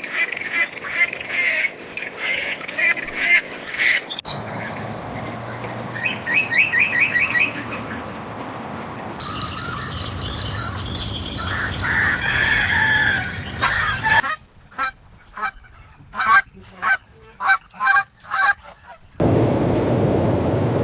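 A run of different bird calls cut one after another: repeated chirps, a quick run of notes, a dense busy chorus, then a series of about nine sharp separate calls. Near the end it gives way to a steady rushing background noise.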